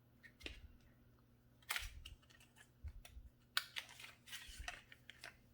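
Light clicks and rustles of cosmetic packaging being handled as a small skincare product is taken out and turned over, a little louder about two seconds in and again past the middle.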